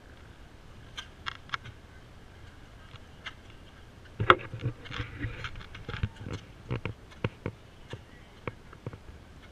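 Footsteps and handling knocks from a camera carried by someone walking on pavement. The clicks are irregular at first, with one sharp knock about four seconds in, then come about two a second.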